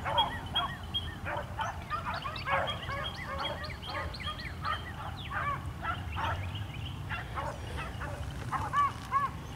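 A pack of beagles baying in the distance, many short overlapping voices calling steadily while they run a rabbit track.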